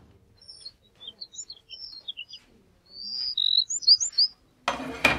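Small birds chirping and twittering in quick, high calls. Near the end, a sudden loud noisy burst with a sharp click.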